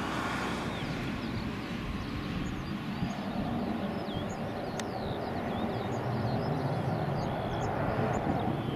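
The twin jet engines of a Eurofighter Typhoon running at high power as the fighter climbs away after an approach and go-around. The noise is steady and even.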